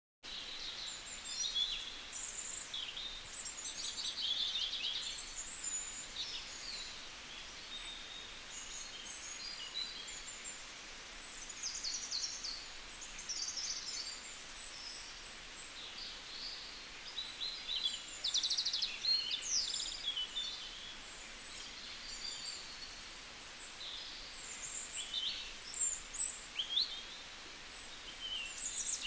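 Birds chirping and twittering, many short overlapping calls and trills over a steady background hiss, busier in the second half.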